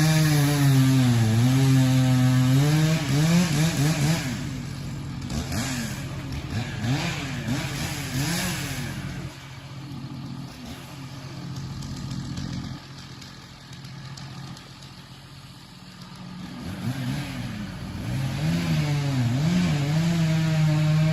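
An engine running and revving up and down, its pitch rising and falling repeatedly, easing to a fainter, lower run in the middle, then coming back up and holding a steady higher pitch near the end.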